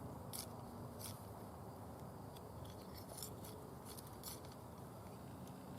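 Faint, scattered sharp clicks and small snaps from dry plant stalks being handled and cut, over a low steady hum.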